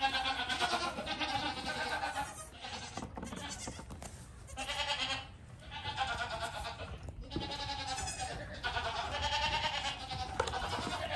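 Young goat kids bleating, a string of high, quavering calls that overlap and pause briefly between bursts.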